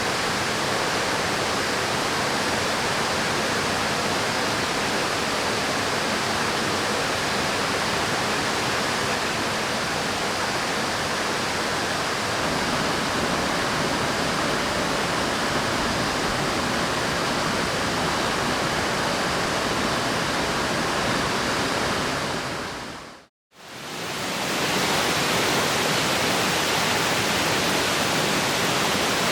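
River water rushing steadily as an even hiss. It fades briefly to silence and back in near the end.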